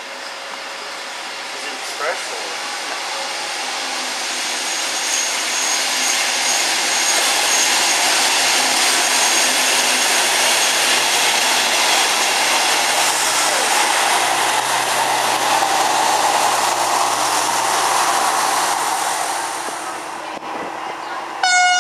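Diesel-electric rail motor RM58 running into the station and rolling past close by, its engine and wheels on the rails growing louder as it nears, then dropping away about 20 seconds in. Near the end a short, loud bird call rings out.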